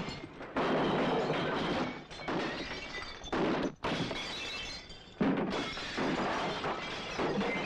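Repeated crashes of glass and crockery being smashed, three big crashes about half a second in, around three and a half seconds in and just after five seconds, with music underneath.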